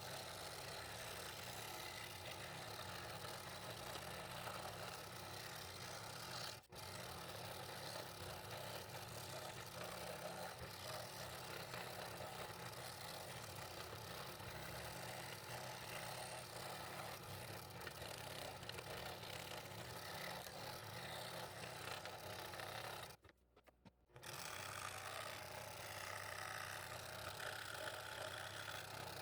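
Scroll saw running steadily, its reciprocating blade cutting fretwork in wood. The sound breaks off for an instant about seven seconds in and for about a second near 23 seconds.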